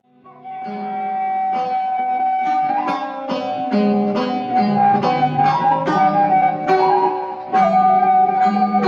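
Sundanese kecapi suling instrumental music: a bamboo suling flute holds long notes over a plucked kecapi zither. The music drops out at the start and fades back in over about a second, dips briefly near the end, then comes in fuller again.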